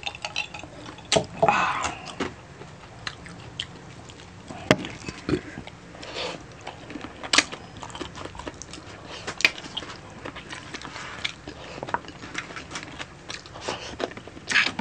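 Close-miked eating of spicy adobo chicken feet: chewing and wet mouth and lip smacks, with sharp irregular clicks throughout.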